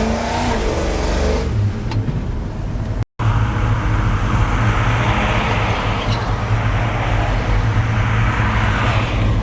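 Chevy pickup's engine running at a steady drone while driving, with road and wind noise building in the second half. The sound drops out briefly about three seconds in.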